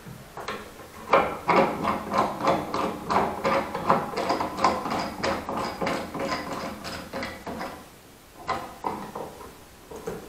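Screw clamps being tightened in short turns on a glued fingerboard: a fast run of creaking, ratchet-like clicks, about three a second, that starts about a second in, stops near 7.5 s and comes back in a few clicks near the end.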